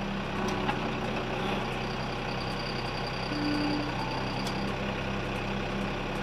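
John Deere 2210's three-cylinder diesel engine idling steadily.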